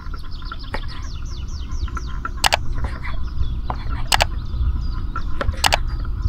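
A knife slicing through raw fat on a wooden cutting board, the blade knocking sharply on the board a few times. Birds chirp with quick downward-sweeping notes throughout.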